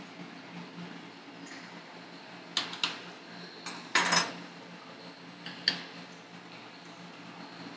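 Metal spatulas clinking and scraping on a rolled ice cream cold plate: a handful of sharp clinks, the loudest cluster about four seconds in, over a steady low hum.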